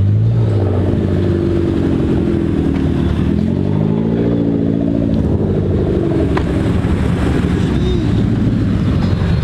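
Car engines running as cars drive off close by, one engine's pitch rising, dropping and rising again in the first few seconds, over a steady low engine hum.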